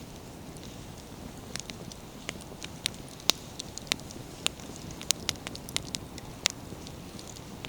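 Wood fire burning firewood: a low steady rush under irregular, sharp crackles and pops from the burning wood. The pops are absent for about the first second and a half, then come every fraction of a second.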